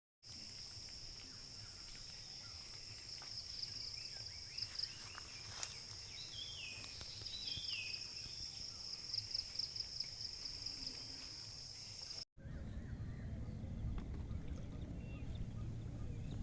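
Steady high-pitched insect drone in the open air, with a few short bird calls about six to seven seconds in. The drone cuts off abruptly about twelve seconds in, giving way to a low rumbling outdoor background with only a faint trace of it.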